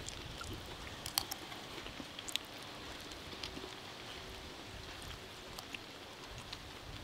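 Faint crunching and a few sharp clicks of people eating a crisp potato-chip snack mix with plastic spoons from paper plates, over a low steady hiss.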